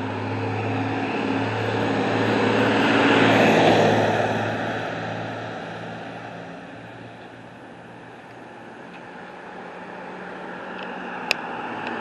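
Heavy truck driving past: its engine hum grows louder to a peak about three seconds in, then fades away. A single sharp click near the end.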